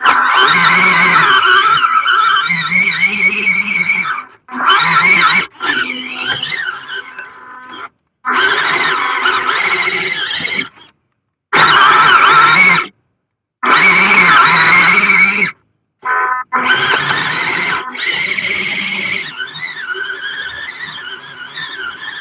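WPL C24 RC truck's stock 180 brushed electric motor and gearbox whining, the pitch wavering up and down with the throttle. It comes in a string of short loud bursts that cut off abruptly into silence and start again.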